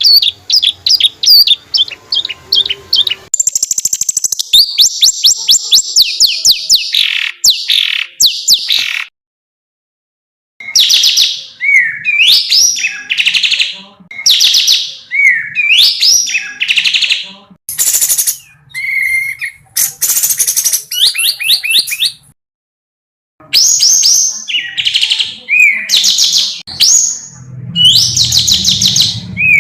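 African songbird song used as tutoring ('masteran') audio: rapid-fire strings of high notes, the 'roll tembak' prized by songbird keepers, then loud one-second phrases of quick notes with upward-sweeping whistles. The song stops twice for about a second, where the recording is cut.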